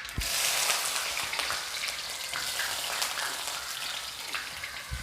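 Chopped onion dropped into hot oil with spluttering mustard seeds, sizzling loudly as it hits the oil, then easing to a steadier frying sizzle.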